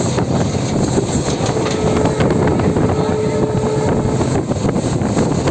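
A moving train heard from on board: a steady rumble of wheels on the track, with wind rushing over the microphone. A faint steady whine comes in for a couple of seconds in the middle.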